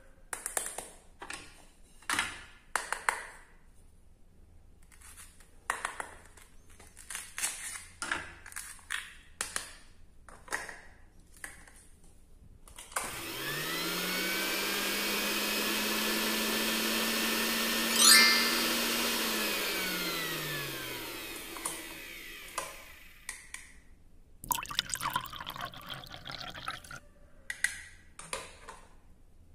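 Plastic toy kitchen pieces clicking and knocking as they are handled. Then a toy hand blender's small motor whirs for about eight seconds: it spins up, runs steadily with one sharp click midway, and winds down. More plastic clatter follows near the end.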